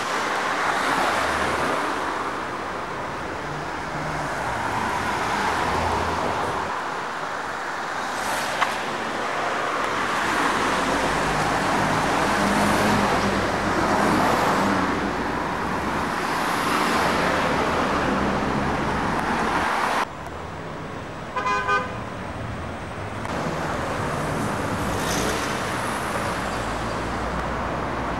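City street traffic: cars passing, their engine and tyre noise swelling and fading every few seconds. About three quarters of the way through, a short car horn toot sounds.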